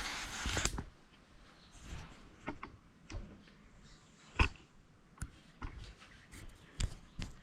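Small parts and tools being handled: a short rustle at the start, then scattered light clicks and knocks, the sharpest about four and a half seconds in.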